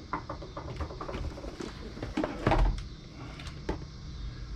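Hands rummaging through a motherboard box and its packaging: scattered light clicks and rustles, with a louder knock about two and a half seconds in.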